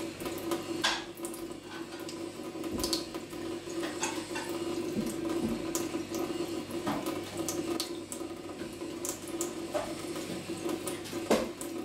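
A thin stream from a kitchen tap running into a stainless steel sink, with scattered small splashes and clicks as a cat laps at the stream.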